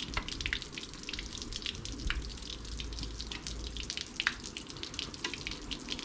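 Water from a garden hose and outboard flushing muffs spattering and dripping in quick irregular ticks, over a low steady rumble.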